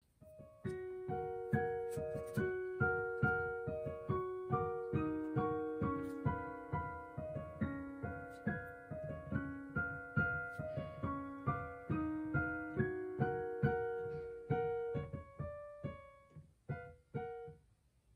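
Background piano music: a light melody of evenly paced notes over a lower line, thinning to a few last notes and stopping near the end.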